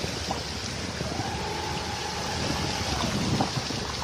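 Wind buffeting the phone's microphone over floodwater, a steady rumbling hiss with a few small clicks. A faint thin high tone comes in about a second in and fades out near three seconds.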